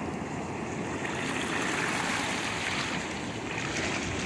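Ocean surf washing steadily over a shallow sandy beach, with wind buffeting the microphone.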